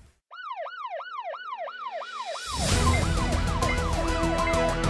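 Emergency alarm siren sound effect wailing in quick rise-and-fall sweeps, about four a second: the rescue team's alarm going off for an emergency call. Music with a beat comes in under it about two and a half seconds in.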